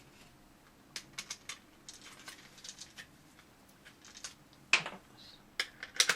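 Irregular small clicks and taps of a plastic magazine cartridge and its screws being handled while the cartridge halves are put back together, with a couple of sharper knocks near the end.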